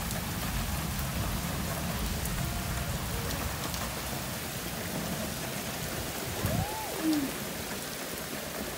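Steady rain falling, an even hiss. About two-thirds of the way through, a single short tone rises and then falls.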